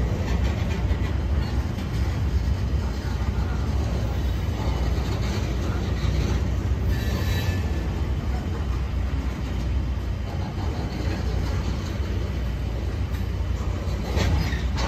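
CSX freight train of open hopper cars rolling past, a steady low rumble of steel wheels on the rails, with a brief wheel squeal about seven seconds in.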